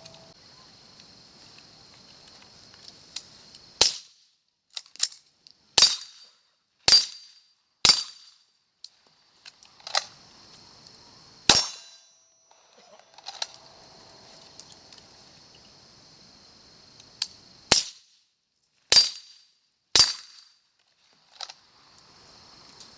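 Pistol shots fired at a range: about nine loud, sharp reports in two strings, spaced roughly a second apart, with a few fainter shots in between. The sound cuts off abruptly after each loud shot, and a faint steady high hiss fills the gaps.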